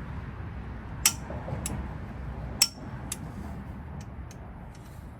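Sharp metallic clinks of steel parts and hand tools being handled, a few separate strikes with the two loudest about one and two and a half seconds in, over a low steady rumble.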